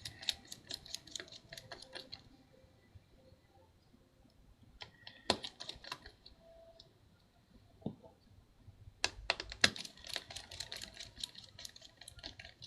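Light, quick clicks and taps of tiny laptop screws and small tools being handled and set down on a workbench, in three short flurries.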